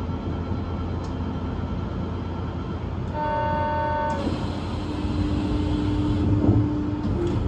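Low steady hum of an Osaka Metro New Tram car standing at a station platform. About three seconds in, a pitched electronic tone sounds steadily for about a second, like a door or departure buzzer, and from about five seconds in a lower steady tone comes in and rises slightly near the end.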